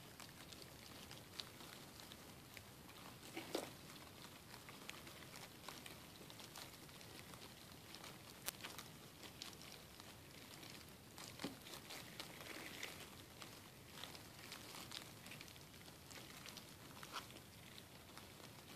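Near silence: a faint steady hiss with scattered soft clicks and rustles, the loudest about three and a half seconds in.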